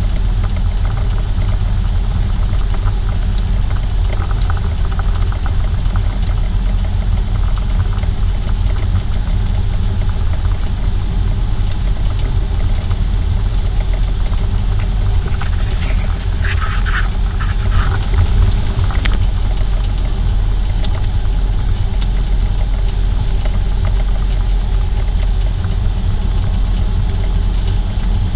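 Jeep Wrangler driving at highway speed: a steady low rumble of engine, tyres and wind. A few brief clicks and rattles come about two-thirds of the way through.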